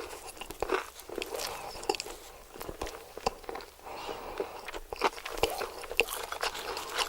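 A person eating close to the microphone: chewing and biting with irregular crisp crackles and wet mouth clicks, several a second.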